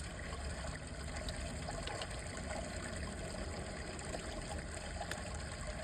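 Steady, even rush of running water in the background.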